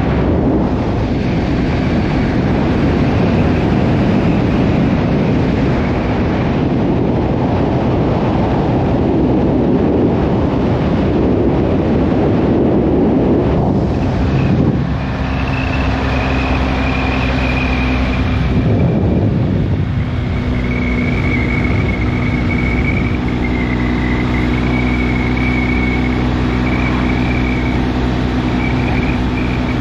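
Motorcycle riding at road speed: the BMW R1250GSA's boxer twin under heavy wind rush. About halfway through the wind noise drops and the engine's steady drone comes through more clearly.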